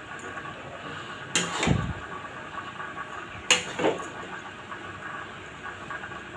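A spatula scraping and clattering against a black kadai twice, about a second and a half in and again near the four-second mark, while Maggi noodles are tossed. A steady low hiss runs underneath.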